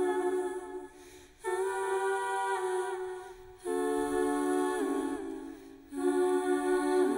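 Slow lullaby music in a wordless vocal passage: held notes in phrases of about two seconds, each fading away before the next begins.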